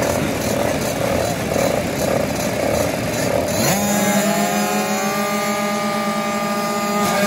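Several kids' 50cc two-stroke motocross bikes revving at the starting gate. About three and a half seconds in, one engine revs sharply up and is held at a steady high pitch while the others climb more slowly, waiting for the gate to drop.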